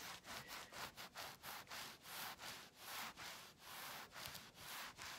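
Norwex EnviroCloth microfiber cloth rubbed back and forth across a cutting board, faint, in rapid repeated wiping strokes.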